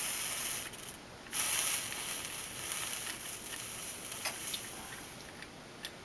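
Flux sizzling with a high hiss under a hot soldering iron as solder melts, in two stretches with a short break about a second in, easing off near the end.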